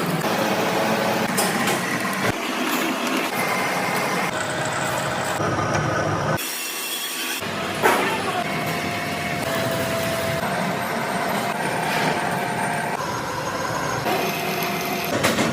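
Heavy industrial machinery running in a forge, a dense mechanical noise with steady whines and hums. It switches abruptly several times as the footage cuts between machines, with a sharp clank about eight seconds in.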